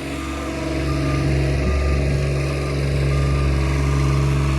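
Diesel engine of heavy paving equipment running steadily, growing louder over the first second, with a backup alarm beeping about once a second.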